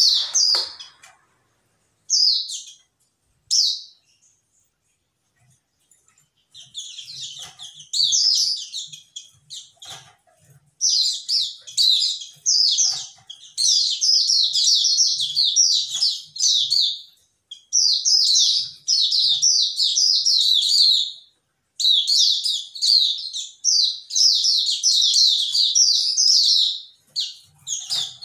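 Caged songbirds singing: a few short high chirps in the first few seconds, then fast twittering, warbling song in long, nearly unbroken runs from about eleven seconds in.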